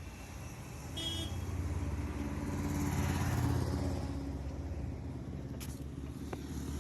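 Motor vehicle engine running on a street, swelling to its loudest about three seconds in and then easing off, with a brief horn toot about a second in.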